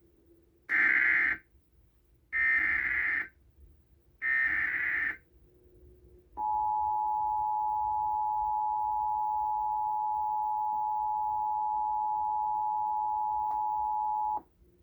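Emergency Alert System tones: three short screeching data bursts of the SAME header, followed by the steady two-tone attention signal of about 853 and 960 Hz held for about eight seconds and then cut off. This is the alert sequence that opens a broadcast severe thunderstorm warning.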